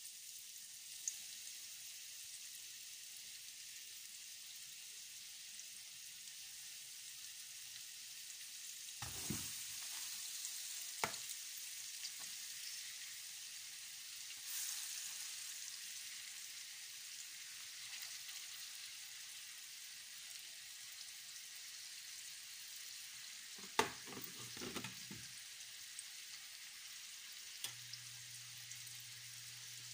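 Flour-coated beef cubes sizzling faintly and steadily in shallow oil in a nonstick frying pan, browning over low heat. A few light knocks a third of the way in and again later as more pieces are set into the pan.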